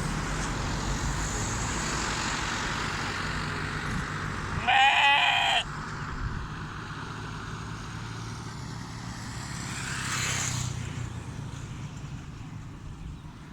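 A single loud bleat from a livestock animal, about a second long, a little under halfway through, over a steady low hum of engines and traffic.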